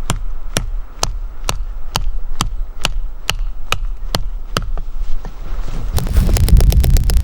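Fixed-blade D2-steel knife chopping into a small dead tree, sharp strikes at a steady two a second. The strikes stop for about a second, then resume faster over a loud low rumble near the end.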